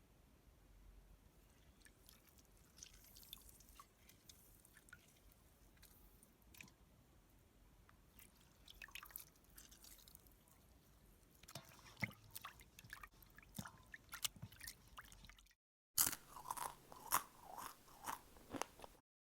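Crisp crunching of someone chewing crunchy food: faint and sparse at first, thickening from about halfway, then louder and denser after a short break near the end.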